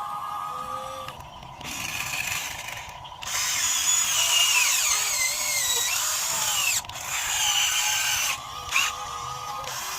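Small electric motors of a radio-controlled model excavator whining, their pitch sliding up and down as the machine moves. The whine comes in several spells with short breaks, loudest in the middle.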